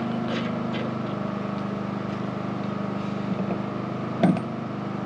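A steady mechanical drone, like an engine or motor running at a constant speed, with one short knock about four seconds in.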